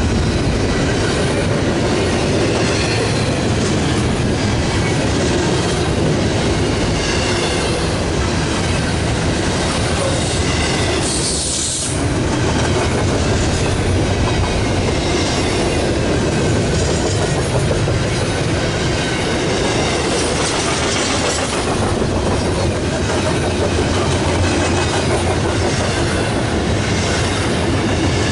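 Double-stack intermodal well cars rolling past at speed: a loud, steady rumble of steel wheels on rail with clicking over the rail joints, briefly dipping about twelve seconds in.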